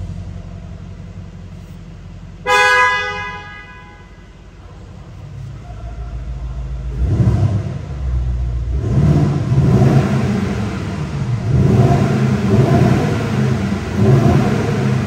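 2024 Mercedes-AMG GLS63's twin-turbo V8 idling, with one short blast of the car horn about two and a half seconds in. From about seven seconds the engine is revved in several loud surges, rising and falling.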